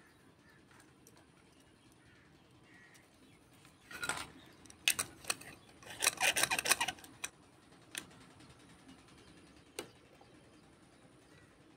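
Small hard plastic toy pieces (miniature plates and figures) clicking and clattering as they are handled and set down: a few clicks about four to five seconds in, a quick run of rattling around six to seven seconds, then single clicks near eight and ten seconds.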